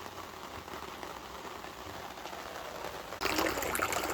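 A steady watery hiss that becomes louder and fuller about three seconds in.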